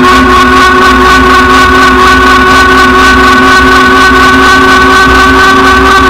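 Rad Power electric bike's hub motor whining at a steady pitch that creeps slightly upward, over a loud, continuous rush of wind and road noise.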